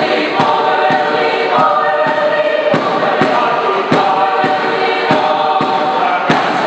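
Mixed choir singing in parts over a steady beat of sharp percussive strikes, about two or three a second.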